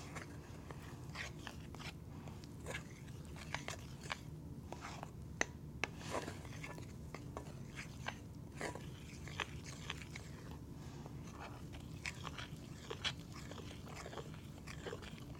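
A spoon stirring a thick fudge mixture of powdered sugar, cocoa, butter and evaporated milk in a bowl, with irregular soft scrapes and clicks against the bowl.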